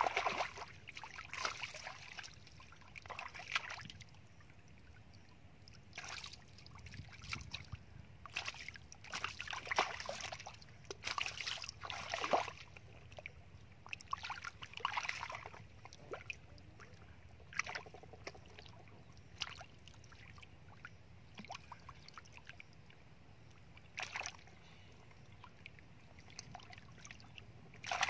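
Hands digging and scooping through shallow muddy water, making irregular splashes and sloshes in short spells a few seconds apart, with quieter stretches between.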